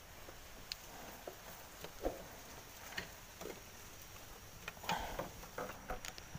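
Faint, scattered taps and small knocks, some ten of them over several seconds, from handling a freshly caught giant freshwater prawn in a small wooden boat.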